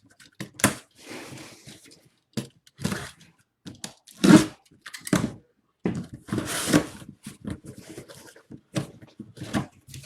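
A sealed cardboard box being torn open by hand: sealing tape ripping and cardboard and packing material crinkling, in a string of irregular rips and scrapes.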